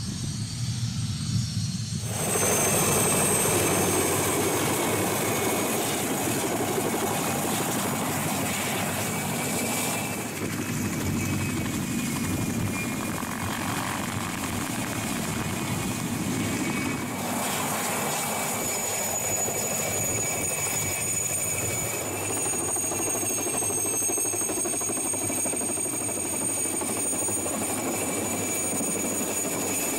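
Mil Mi-2 helicopter flying low overhead, its twin turboshaft engines giving a steady high whine over the rotor noise. The first two seconds hold only a low rumble before the loud whine starts suddenly.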